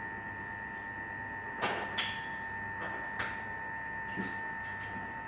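A few light clicks and knocks, the loudest pair about one and a half to two seconds in, over a steady high-pitched hum.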